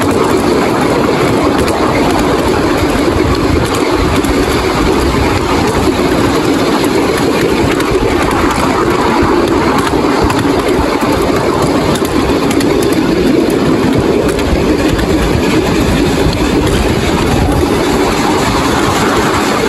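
Lynton and Barnstaple Railway narrow-gauge train running, heard from aboard a carriage: a loud, steady rumble of the wheels and carriage on the track.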